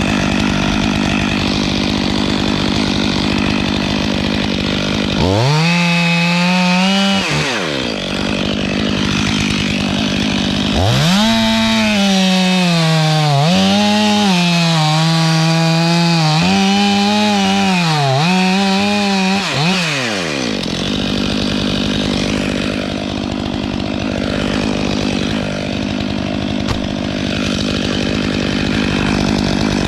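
Stihl 500i two-stroke chainsaw idling, revved up briefly about five seconds in. From about eleven seconds it runs at full throttle through a cut for roughly ten seconds, its pitch sagging and recovering several times as the chain loads up in the wood, then falls back to idle.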